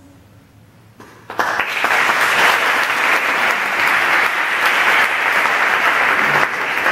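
Audience applauding, breaking out suddenly about a second in after a brief hush and continuing steadily.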